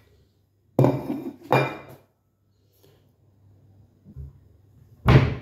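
Kitchen pots and dishes clattering: two clanks with a brief ring about a second in, half a second apart, then faint handling noises and a louder knock near the end.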